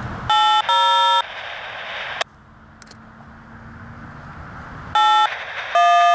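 Uniden BC75XLT handheld scanner tuned to 160.950 MHz, playing railroad radio traffic through its speaker: two short electronic tone bursts, about a second of static hiss cut off abruptly by the squelch, then two more tone bursts near the end.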